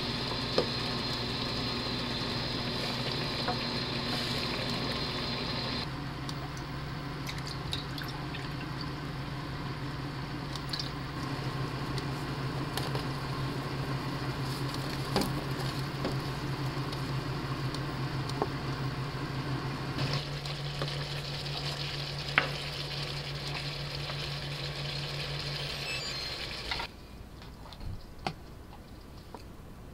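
Food sizzling and bubbling on an induction cooktop while it is stirred with a wooden spoon, with occasional utensil clicks and a steady low hum underneath: first a braise of pork ribs in a wok, then a pot of boiling liquid. The cooking sound cuts off a few seconds before the end.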